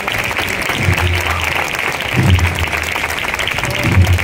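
Large crowd applauding: a dense, steady patter of many hands clapping. Low notes come in underneath about a second in and swell twice.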